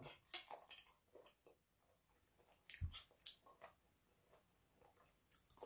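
Near silence with faint chewing: a few soft mouth clicks and smacks in two short clusters, near the start and around the middle.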